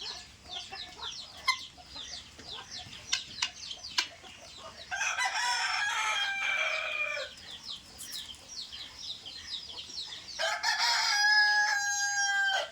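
A feeding flock of guinea fowl and chickens keeping up a steady chatter of quick, high, falling peeps. A rooster crows twice, about five seconds in and again near the end; the second crow is the loudest sound and holds a steady pitch.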